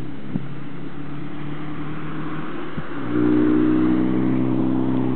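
A car engine running with a steady hum, getting louder about three seconds in as the vehicle comes closer.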